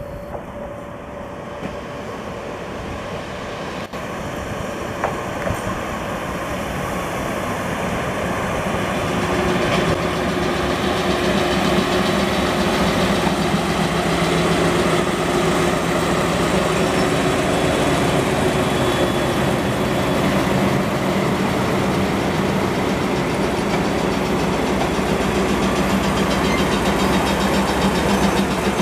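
JR Kyushu DE10 diesel-hydraulic locomotive and its V12 diesel engine approaching and passing close by at low speed. The engine noise grows louder over the first ten seconds or so, then holds as a steady loud drone while the locomotive and the coach behind it pass.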